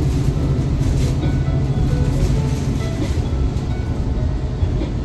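Steady low rumble of a passenger train carriage running along the track, heard from inside the car, with faint music underneath.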